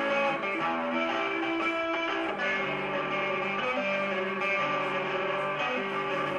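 Live band music led by electric guitars playing held, ringing notes and changing chords.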